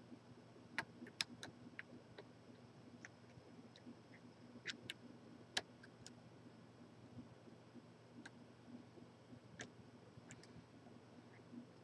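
Faint, irregular metallic clicks of a lock pick and tension wrench working in the keyway of a large Corbin padlock, about a dozen scattered ticks over a faint low hum.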